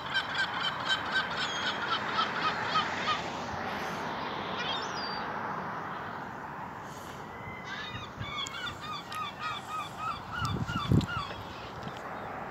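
Gulls calling in two runs of quick, repeated yelping calls, one at the start and another in the second half. A brief low thump comes near the end.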